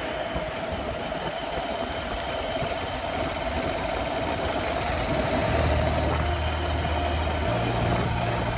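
Motorcycle riding along a road: engine running under steady wind and road noise on the microphone. A deeper engine hum comes in about five and a half seconds in and steps up in pitch about two seconds later.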